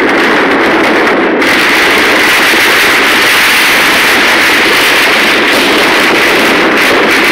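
Dense, continuous crackle and bang of many firecrackers and fireworks going off at once across the city, merging into one loud, unbroken din that turns brighter and more hissing about a second and a half in.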